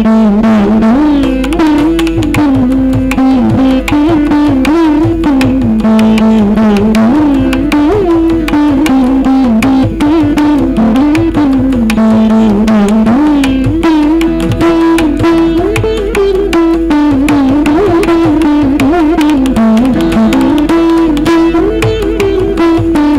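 Saraswati veena playing a Carnatic melody whose notes slide and bend up and down, with mridangam strokes as the drum accompaniment.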